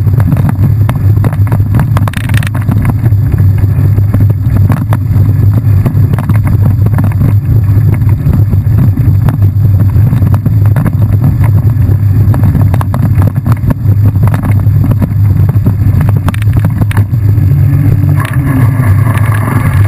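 Heavy wind rumble on a camera microphone riding a mountain bike at speed, with constant small rattles and knocks from the bumpy dirt trail.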